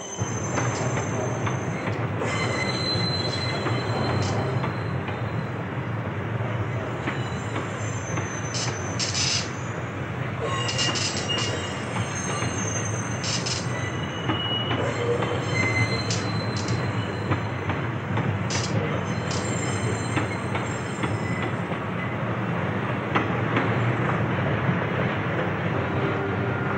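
New York subway train running through a yard: a steady rumble of wheels on the rails, with high metallic squeals from the steel wheels and scattered clanks.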